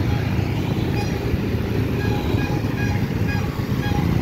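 Street traffic: a steady low rumble of vehicles, with motorcycles riding past.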